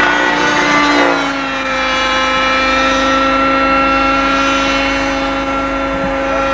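Engine of a radio-controlled Robbe Écureuil model helicopter whining steadily in flight. Its pitch dips slightly about a second in, then holds.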